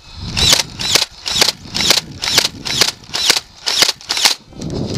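Nerf foam-dart blaster firing repeatedly, about nine shots at roughly two a second.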